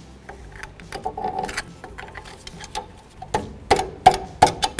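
Steel pry bar working a sway bar link free from the front suspension: metal-on-metal clinks and knocks, each with a short ringing tone. They are sparse at first, then come as several sharp knocks in quick succession near the end.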